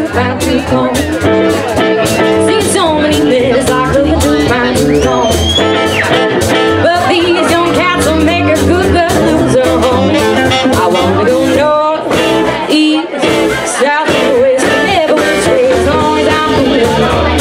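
Live small jazz band playing: a woman singing into a microphone with saxophone, upright bass, guitar and drum kit behind her.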